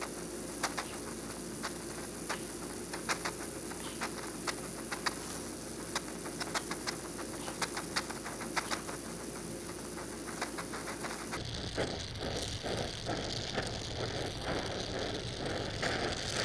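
Oxy-acetylene torch flame hissing steadily as it welds steel plate with filler rod, with irregular sharp crackles and pops from the sparking weld puddle. About eleven seconds in, the hiss changes in tone.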